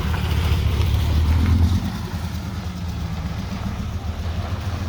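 A car engine running at low revs: a steady low hum that eases off a little about two seconds in.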